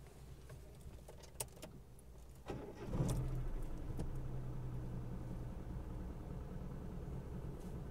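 A sharp click about one and a half seconds in, then a motor starts up near the three-second mark and runs with a steady low hum that slowly fades.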